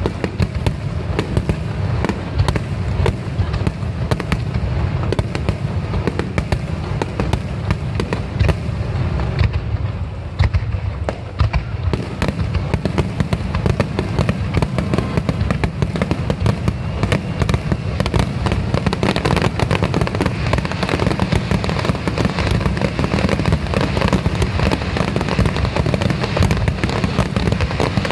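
Fireworks bursting in a dense, continuous barrage, bangs following one another too fast to count: the climax of a fireworks display. The bangs thin slightly for a moment about ten seconds in, then grow denser again.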